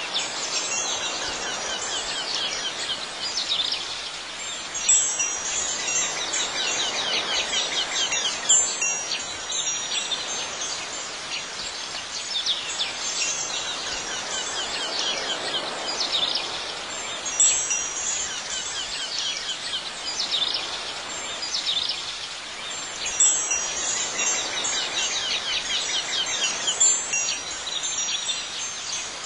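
Wind chimes tinkling over a steady outdoor ambience, with a few sharper, louder strikes every several seconds.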